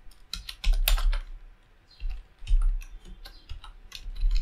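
Computer keyboard keys clicking in irregular clusters of quick keystrokes, with short pauses between the bursts.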